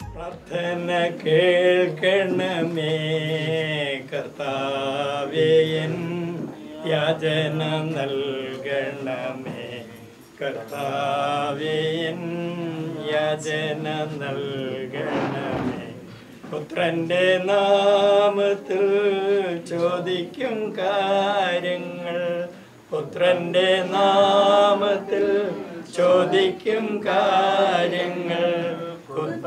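A Christian liturgical prayer chanted by a voice in long sung phrases of a few seconds each, with short breaks between them.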